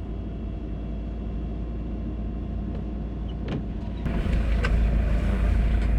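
Car interior noise while driving: a steady low engine and road rumble that grows louder about four seconds in, with a few light clicks.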